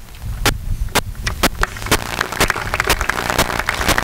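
Audience applauding: a few separate claps about half a second in, quickly thickening into a dense patter of many hands clapping.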